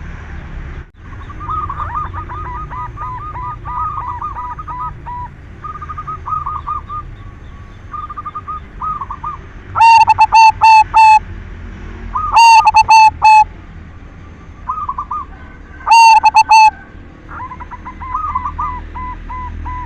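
Zebra dove (perkutut, silver colour form) cooing: quick runs of repeated coo notes, fainter through the first half, then three loud coo phrases, loud enough to distort, about halfway through, a couple of seconds later and near the end, with softer cooing between them.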